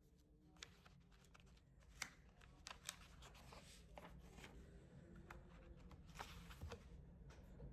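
Faint rustling and clicking of paper forms and a pen being handled while signing, with a couple of sharper clicks about two and three seconds in, over low room hum.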